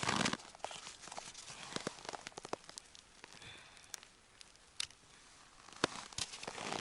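Rustling and crackling handling noise with scattered small clicks. It is louder at the very start, quieter through the middle and builds again near the end.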